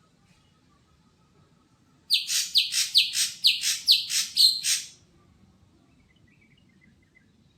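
Caged green leafbird (cucak hijau) calling: a run of about seven sharp, high notes, each sweeping downward, repeated a little over twice a second for about three seconds, then stopping.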